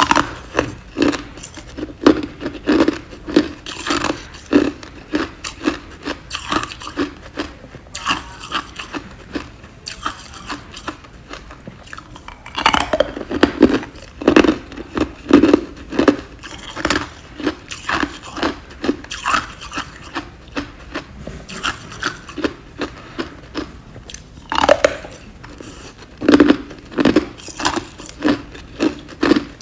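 A person biting and chewing ice, a steady run of sharp crunches about two a second, with a few louder bites among them.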